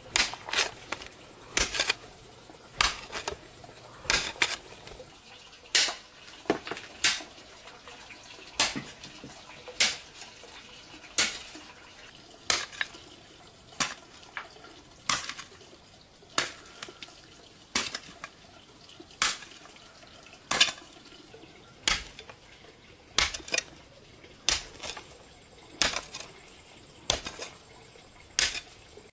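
A series of short, sharp knocks or clicks at an irregular pace of roughly one or two a second.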